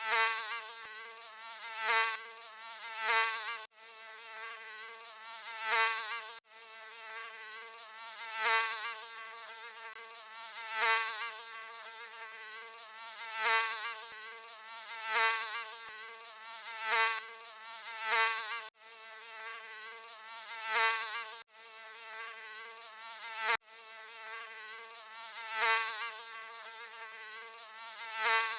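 Mosquito buzzing: a high, wavering whine that swells loudly every one to two seconds, with a few instant cut-outs where the sound is spliced.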